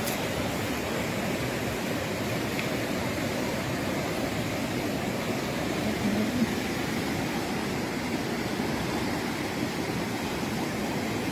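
Mountain river rushing over boulders: a steady, even wash of water noise.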